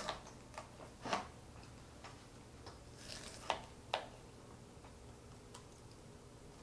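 Scattered small clicks and knocks of a food container being handled and worked at to get it open, irregular and spaced out, with two sharper clicks about halfway through.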